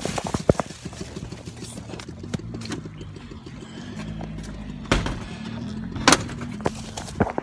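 Several sharp knocks and rubbing from a handheld phone being moved about, over a low hum in the background.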